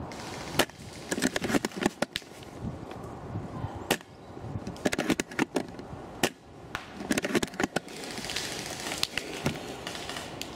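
Sharp clicks and cracks in irregular short clusters, with a patch of rustling near the end.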